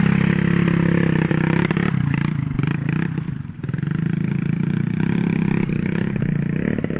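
Small motorcycle engine running under throttle close by. It eases off briefly about halfway through, then picks up again.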